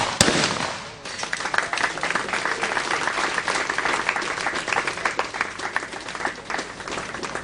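A shotgun shot cracks right at the start and rings out, then from about a second in an audience applauds steadily.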